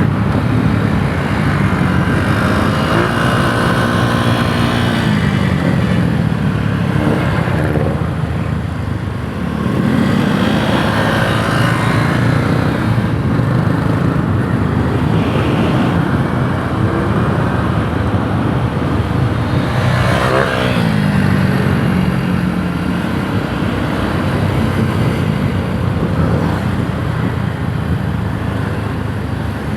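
Yamaha YTX 125 cafe racer's single-cylinder four-stroke engine running on the move. Its pitch rises and falls several times as the bike speeds up through the gears and slows down.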